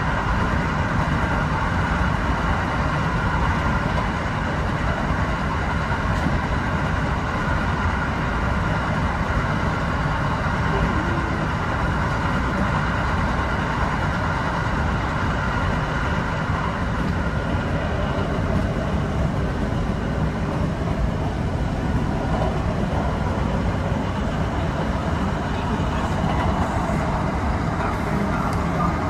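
Kintetsu 8000-series electric train running steadily along the line, heard from inside the leading car: a continuous rumble of wheels and running gear with a faint steady whine.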